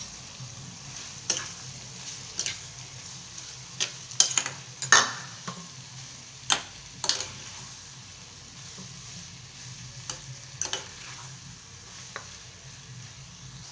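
Chopped bitter gourd, tomato and onion sizzling in oil in a non-stick kadai as a metal spatula stirs them. The spatula clacks and scrapes against the pan at irregular intervals, most often in the first half.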